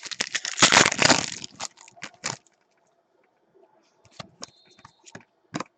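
Trading-card pack wrapper being torn open and crinkled, a dense crackle over the first second and a half. It is followed by scattered light clicks of cards being handled.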